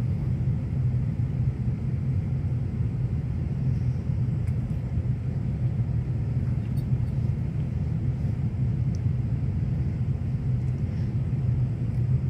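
Steady low rumble, with a few faint light clicks.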